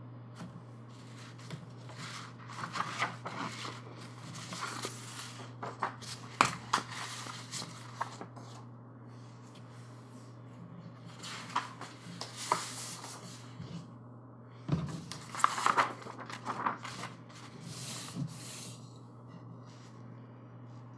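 Large glossy poster sheets being lifted, turned over and laid down by hand: paper rustling, sliding and crinkling in two spells, about a second in and again from the middle, with a steady low hum underneath.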